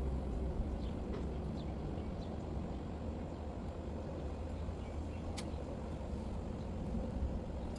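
Steady low background rumble, like outdoor ambience, with a few faint short chirps and a sharp click about five seconds in.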